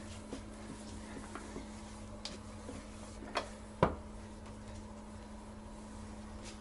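A cloth wiping a plastic toilet seat, with a few light plastic clicks and knocks as the seat is handled, the sharpest just under four seconds in, over a steady low hum.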